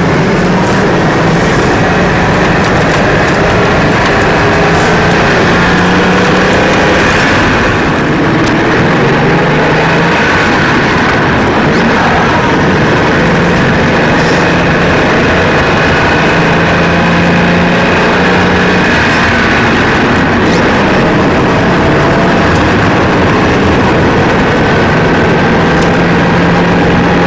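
Car running and driving: steady engine and road noise, with faint whines that rise and fall in pitch.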